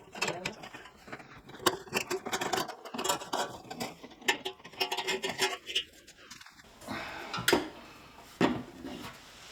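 Irregular clicks, knocks and light metallic clatter of hands working on an old Metabo BAS 260 Swift band saw as its old blade is taken off.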